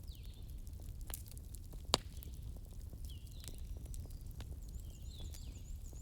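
Bonfire crackling, with scattered small pops over a low steady rumble and one loud sharp pop about two seconds in. Faint high chirping calls from some animal sound a few times.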